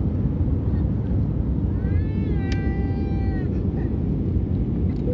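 Steady low rumble of engine and airflow noise inside an airliner cabin in flight. About two seconds in, a short high-pitched whining cry sounds for under two seconds.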